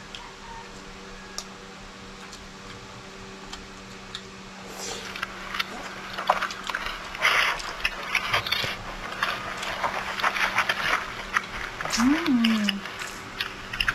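Close-miked eating sounds of people eating chicken and rice with their fingers: wet smacking, sucking and crunchy chewing clicks that start about five seconds in, after a quieter stretch of faint mouth clicks. A short hummed "mm" rises and falls near the end, over a steady low hum.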